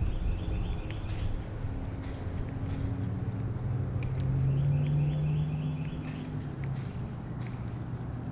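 Wind rumbling on the microphone under a low motor hum that rises in pitch and grows louder about halfway through, then settles lower. Two short spells of fast, high ticking and a few faint clicks sound over it.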